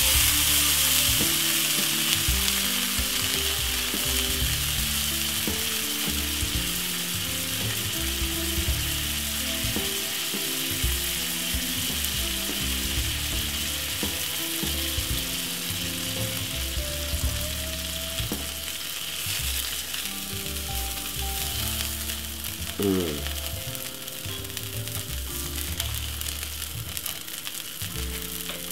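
Butter and chocolate pancake batter sizzling in a hot non-stick frying pan. The sizzle flares up as fresh butter pieces hit the pan and then eases off gradually.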